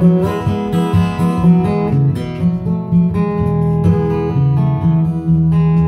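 Acoustic guitar playing an instrumental break between sung verses, strummed and picked notes moving in steady steps, with no singing.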